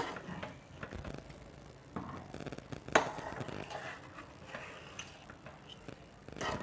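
Steel ladle stirring thick rice-and-lentil mash in a pressure-cooker pot: soft, rough stirring noise with scattered scrapes and clinks of the ladle against the pot, the sharpest clink about three seconds in.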